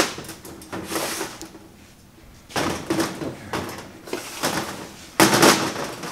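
Cast-iron cylinder head of a Jeep 4.0 inline-six being shifted and turned over on a metal workbench: a series of heavy metal clunks and scrapes, the loudest a little after five seconds in.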